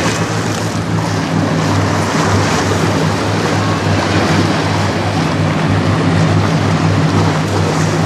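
Low, steady drone of a passing bulk-carrier lake freighter's engine, under a constant rush of wind on the microphone and choppy water splashing.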